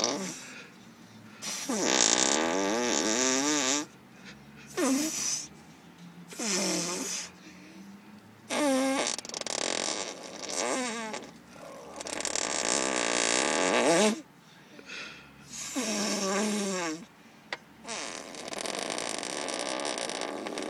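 A child making arm farts: air squeezed out between hand or armpit and arm in a string of about ten wet, sputtering blasts, each lasting one to two seconds, with a wobbling, sliding pitch and short pauses between them.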